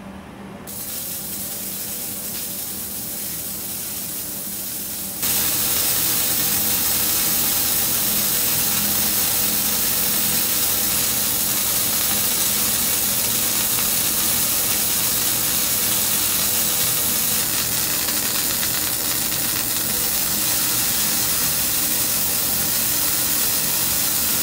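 Gas bubbling through water from a glass tube while phosphine bubbles ignite in ozone at the surface, heard as a steady hissing noise. It grows louder about a second in, and again suddenly about five seconds in.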